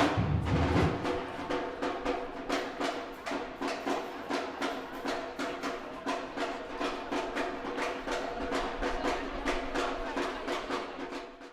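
African street-parade drumming: drums struck in a fast, steady rhythm, with the deep bass dropping out about a second in and leaving sharper, higher strikes. It fades out at the very end.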